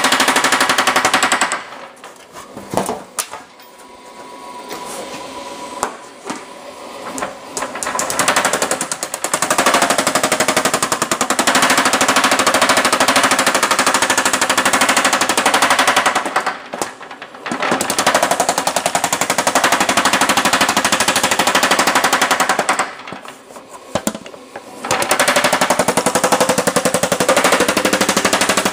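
Yoder LK90 power hammer running with thumbnail shrinking dies, a rapid stream of blows on a sheet-metal panel being shrunk. It eases off for several seconds about two seconds in, then stops twice briefly later.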